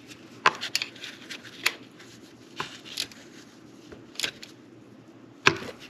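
Irregular sharp clicks and knocks of hand tools and plastic engine parts being handled as a fitting on the new PCV valve and hose is tightened, with a low steady hum underneath.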